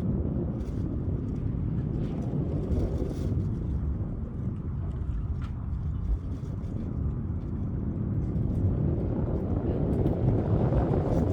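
Storm wind gusting against the microphone: an irregular low rumble that swells near the end.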